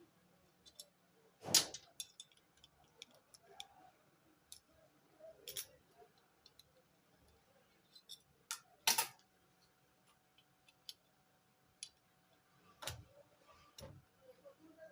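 Scattered light metal clicks and a handful of sharper knocks, irregularly spaced, from hand tools working on the bolts of an electric steering column assembly.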